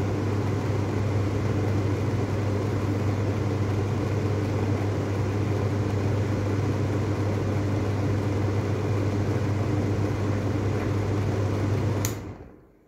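Mistral Style 5 250 mm exhaust fan running, a steady motor hum under an even rush of air. Near the end comes a sharp click, and the sound dies away quickly.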